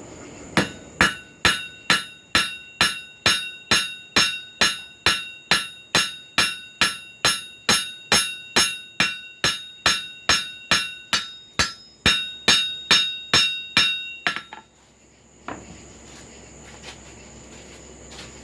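Hammer blows on an anvil, about two a second, each with a bright metallic ring, as a hot carbon-steel cut nail is forged into a small hook. The hammering stops about fourteen seconds in, followed by a single knock.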